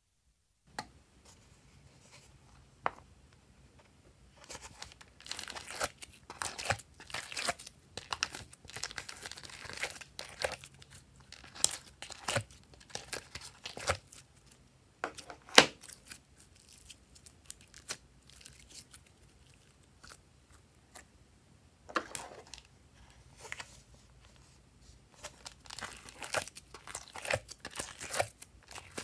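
Soft coloured clay being pressed into and pulled out of silicone molds by hand, giving irregular clusters of crackles and sharp clicks, with a quieter stretch about halfway through.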